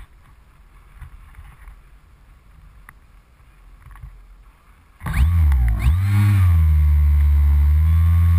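Electric motor and propeller of a foam FPV model plane, heard through the onboard camera, starting suddenly about five seconds in, dipping and recovering in pitch once, then running steadily at a low pitch.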